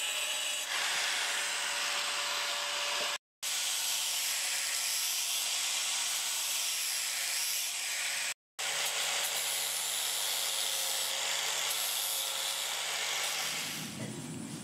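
Angle grinder with an abrasive disc grinding a steel knife blade: a steady motor whine under a high, hissing grind, cut off for a moment twice. Near the end it gives way to a lower, duller noise.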